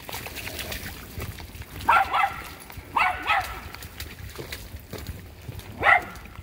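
A dog barking in short bouts: a quick double bark about two seconds in, another double bark a second later, and a single bark near the end.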